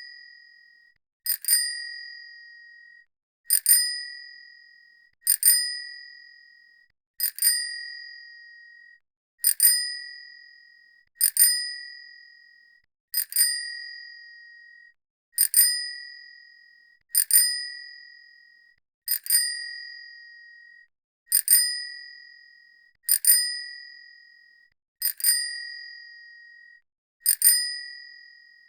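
Bicycle bell rung over and over: a quick double ring about every two seconds, each ring clear and high-pitched, fading away over a second or so.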